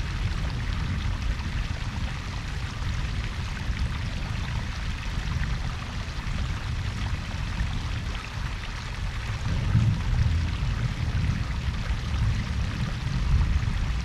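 Koi pond waterfall and brook: a steady rush and splash of falling, running water, with a deeper low rumble that swells about ten seconds in and again near the end.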